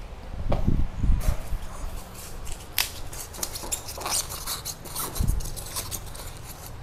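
Hands handling potted orchid plants and packing material: rustling and crackling clicks, with a few dull thumps about half a second in and again near the end.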